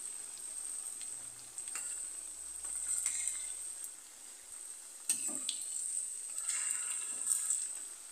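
Batter-coated susiyam dumplings deep-frying in hot oil in a steel kadai, sizzling steadily, with a few light clicks of a perforated metal skimmer against the pan as they are turned. The sizzle grows louder about five seconds in.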